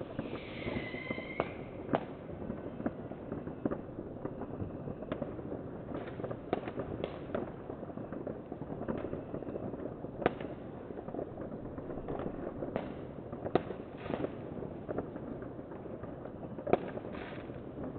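Fireworks and firecrackers going off around the neighbourhood: irregular sharp bangs of varying loudness over a constant crackle of more distant ones. Near the start a short falling whistle, like a whistling rocket.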